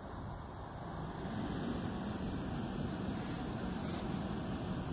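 Small titanium canister gas stoves burning at full flame, one heating a moka pot, with a steady rushing hiss that grows slightly about a second in and then holds.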